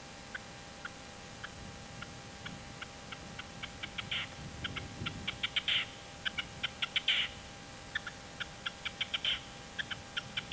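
Red-legged partridge calling: a series of short, clipped notes that come faster and build into louder clustered bursts, repeated several times.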